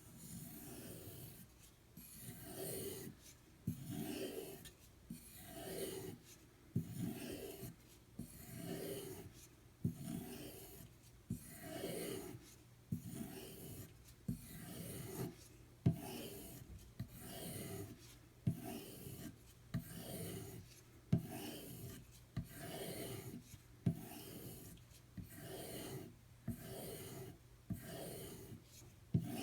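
Knife blade being stropped on a strop loaded with white polishing compound: repeated rubbing strokes, about one a second, a few ending in a light click. This is the final polishing stage of the edge after the 1K stone.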